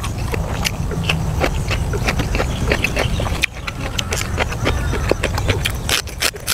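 Close-up chewing and wet mouth clicks while eating, getting denser near the end as a crunchy green vegetable is bitten, over a steady low rumble.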